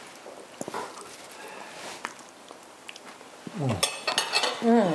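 Knife and fork lightly clinking and scraping on plates as two people eat, then appreciative "mmm" hums that fall in pitch, about three and a half seconds in and again near the end.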